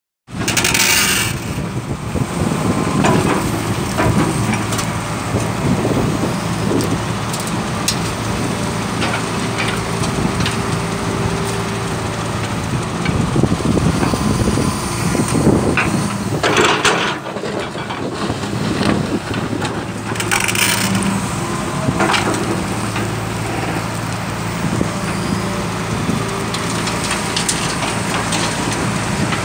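Tracked hydraulic excavator's diesel engine running steadily under load as its bucket digs into gravelly soil, with scraping, cracks and crunches of stones and a few louder rushing bursts.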